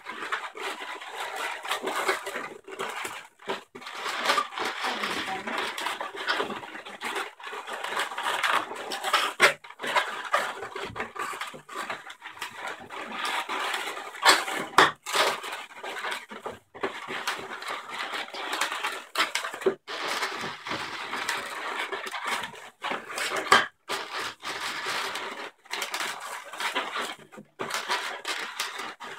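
Inflated white latex 160 modelling balloons squeaking and rubbing against one another and against the hands as they are twisted together and pressed into shape. The sound comes and goes irregularly, with frequent short breaks.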